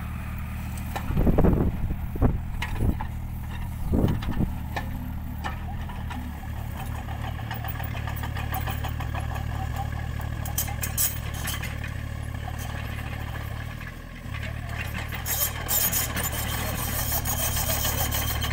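Tata Hitachi Zaxis 33U mini excavator's diesel engine running steadily under load, with two heavy knocks of the bucket striking the soil in the first few seconds. Later, clusters of sharp clicks and rattles as the machine moves on its tracks.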